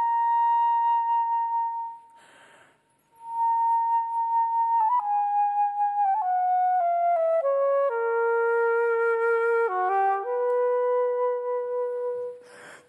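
Solo gold flute playing a slow melody: a long held high note, a breath taken about two seconds in, then the line steps down to a long low held note, with another breath just before the end.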